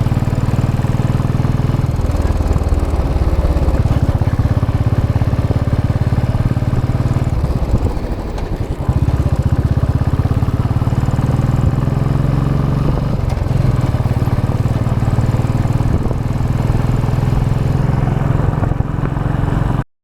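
Royal Enfield Classic 500 EFI's air-cooled single-cylinder engine on its stock exhaust, running steadily while riding. The throttle eases off briefly about eight seconds in, then picks up again. The sound cuts off suddenly near the end.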